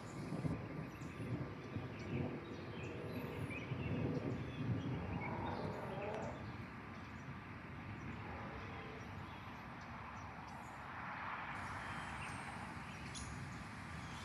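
Outdoor ambience: a low, uneven rumble, loudest in the first half, with scattered bird chirps over it and a brief rise of hiss about eleven seconds in.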